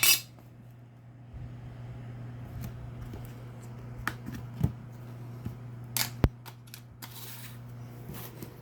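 Hands handling a new knife and a cardboard shipping box. A few sharp clicks with a brief scraping rustle near the end, over a steady low hum.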